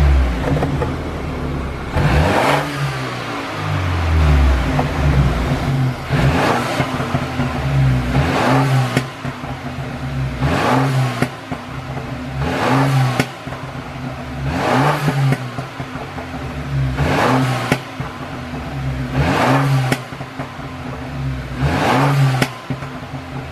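2012 BMW F30 320i's turbocharged four-cylinder engine blipped repeatedly, about every two seconds, about ten times. The exhaust crackles and pops with each rev, the overrun pops from the 'pop sound' tune.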